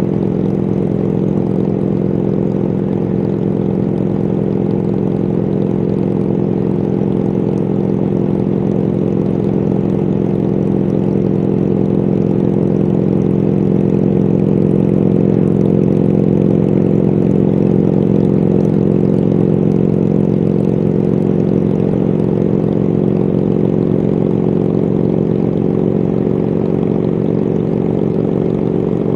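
A 1999 BMW R1100RT's boxer twin engine runs at a steady highway cruise, a continuous low drone that gets slightly louder around the middle.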